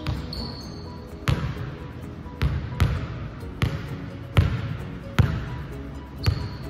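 A basketball bouncing on a hardwood gym floor, about eight bounces at uneven spacing, each followed by a short echo.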